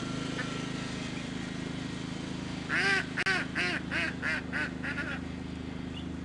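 A small engine running steadily. About three seconds in, a bird gives a run of about eight short calls, roughly three a second, each rising and falling in pitch.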